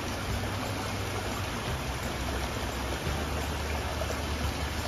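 Small garden waterfall running over rocks: a steady rushing of water, with a low rumble underneath.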